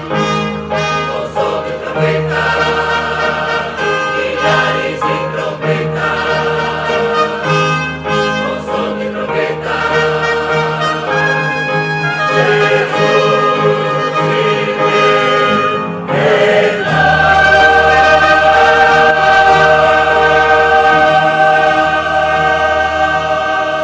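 A choir singing a gospel song with brass accompaniment, building to a long held final chord about two-thirds of the way through that cuts off at the end.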